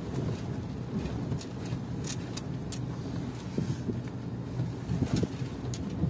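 Toyota Hilux pickup driving, heard from inside the cab: a steady low rumble of engine and road, with a few short knocks and rattles scattered through it.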